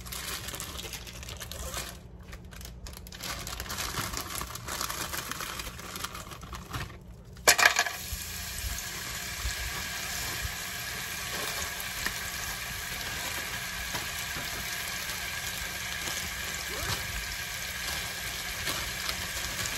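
Irregular rustling, then frozen diced green bell pepper hits hot oil in a nonstick pan with a sudden loud burst about seven and a half seconds in. After that the pepper sizzles steadily as it fries.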